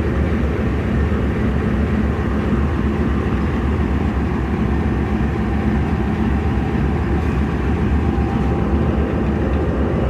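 Pakistan Railways RGE20 diesel-electric locomotive idling with a steady low engine rumble and hum, ready for departure.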